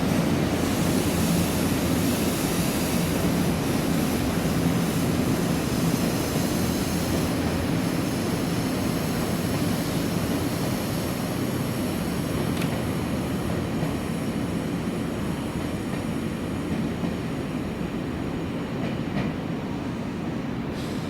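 Nankai 9000 series electric train running, a steady rail rumble with a low hum that slowly fades.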